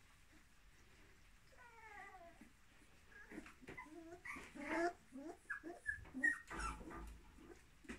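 A litter of puppies about 26 days old whimpering and yipping in short, high calls, some sliding down in pitch. The calls start about two seconds in and come thicker and louder toward the end.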